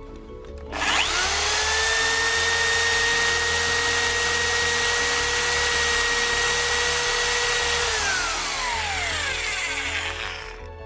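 Parkside PSBM 1100 A1 1100-watt corded hammer drill spinning up about a second in and drilling into a stone slab with a steady high whine. Near the end the trigger is released and the motor winds down, falling in pitch.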